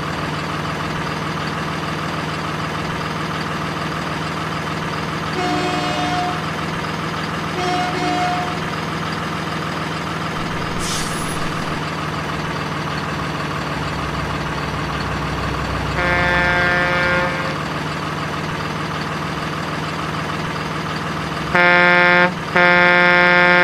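Truck sounds: a steady low engine drone, with horn honks on top. There are two short toots around six and eight seconds in, a longer honk about sixteen seconds in, and two loud blasts near the end. A brief hiss comes about eleven seconds in.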